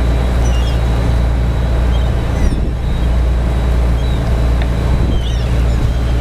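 Sportfishing boat's engine running steadily underway, a constant low drone, with a few faint seagull calls overhead.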